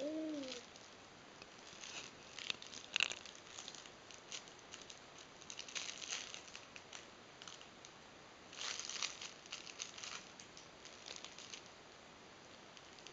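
Soft fabric baby book being handled and its pages turned, giving faint rustling in bursts, strongest about three seconds in, at six seconds and around nine seconds. A short falling voice sound right at the start.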